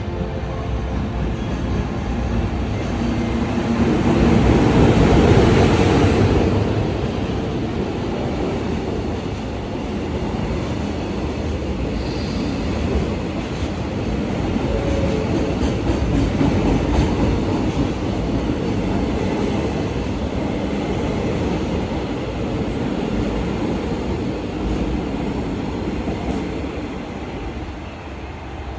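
A freight train hauled by a JR Freight EF210 'Momotaro' electric locomotive running past, loudest about four to six seconds in, then a long steady rumble of the wagons' wheels on the rails.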